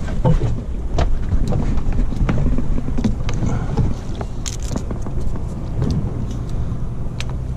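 Steady low rumble of a fishing boat's engine idling, with wind on the microphone and a few sharp knocks.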